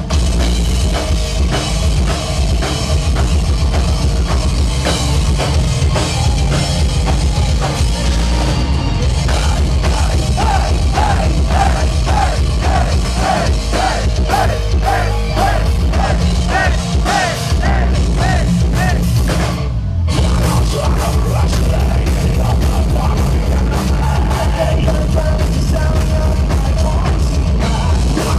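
A live heavy metal band playing loud, with pounding drums and electric guitar over a heavy low end. A run of short, repeated high notes sounds through the middle, and the music breaks off briefly about two-thirds of the way through before coming back in.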